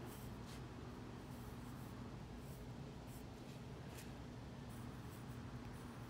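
Pencil scratching on drawing paper in short, faint strokes.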